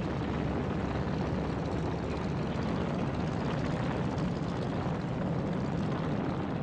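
Propeller engines of B-29 Superfortress bombers running steadily, a dense, even noise with a heavy low rumble.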